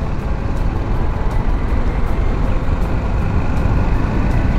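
BMW G310GS single-cylinder motorcycle riding along a road at speed: a steady deep rumble of wind and engine.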